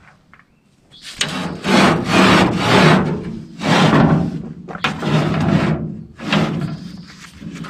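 Repeated rough rubbing strokes of a hand tool against wood, each about half a second to a second long, in an uneven rhythm.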